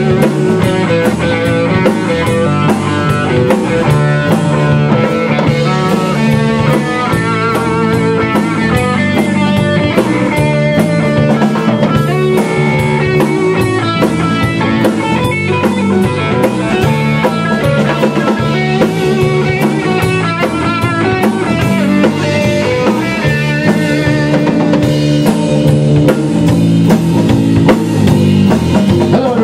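A live rock band plays an instrumental section with drum kit, electric guitar and bass guitar, and no singing.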